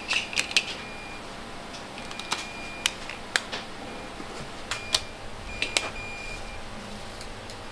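Sharp plastic clicks as Bluetooth earpieces are handled and seated in test fixtures. Several short, high electronic beeps sound during function testing, the longest about three-quarters of the way through.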